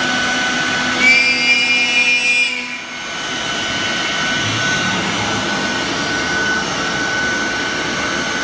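CNC router spindle cutting a SIP panel: a steady whine over a rushing machine noise. About a second in, a louder, higher ringing whine sets in for about a second and a half and then drops away, and the steady running carries on.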